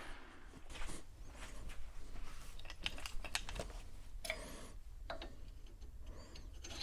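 Light clicks and taps of small steel machine parts being handled, with a couple of short metallic rings, the loudest about four seconds in. It is a pivot piece being tried on a freshly polished pin to test the fit.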